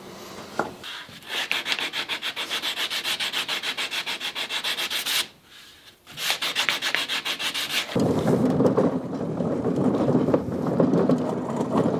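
Sanding block rubbing along the edge of a Meranti plywood panel in quick, even back-and-forth strokes, with a short pause about five seconds in; the plywood is very splintery and its edge veneer lifts as it is sanded. Near the end the scraping gives way to a steadier rumble of a wheeled wooden cart rolling over concrete.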